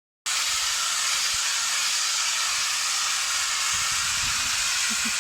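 A loud, steady hiss that starts abruptly a moment in and holds an even level throughout.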